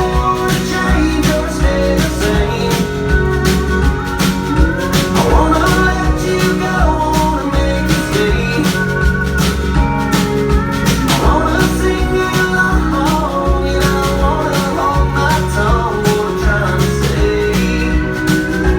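Country-rock band music: guitar over a steady bass and drum beat, with a melodic line gliding through the middle.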